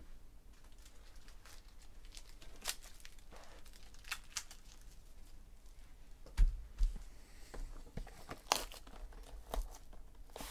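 Plastic shrink-wrap on a sealed trading-card box being crinkled and torn, in scattered sharp crackles. Two dull thumps from the box being handled come about two-thirds of the way in.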